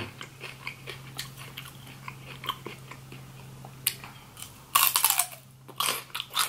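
A celery stalk bitten with a loud crisp crunch about five seconds in, followed by a second crunch as the bite is chewed.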